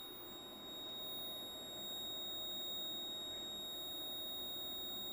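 Steady high-pitched electronic whine holding one pitch, with fainter overtones above it and a low hum beneath, from the powered test circuit and bench equipment.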